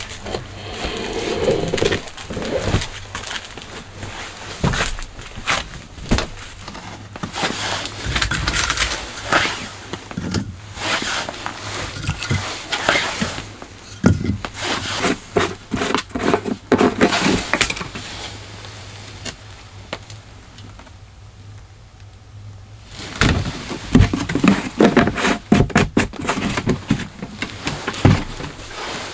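Split firewood being handled and stacked into the firebox of a small metal wood stove: a long run of wooden knocks and clatters, with a quieter lull about two-thirds of the way through.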